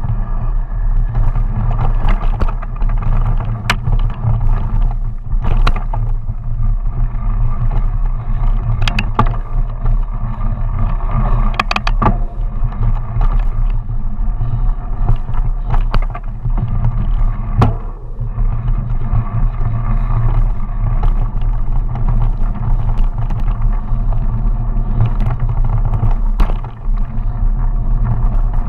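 Mountain bike riding fast down a dirt trail: a steady low rumble of tyres on dirt and air rushing past, broken by frequent sharp knocks and rattles of the bike's chain and frame over bumps.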